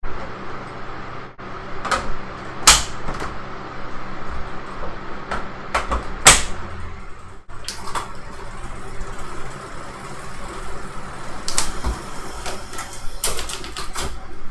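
A rider starting to pedal on an indoor bike trainer: a steady hum with sharp clicks and knocks scattered through it, the loudest near three and six seconds in.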